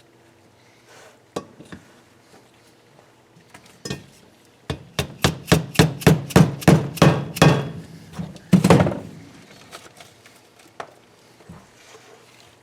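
Hammer tapping on the KA24DE cylinder head assembly, driving a part down onto its seat. A few light taps give way to a quick run of about a dozen sharp blows, about four a second, then one harder blow and a few light taps.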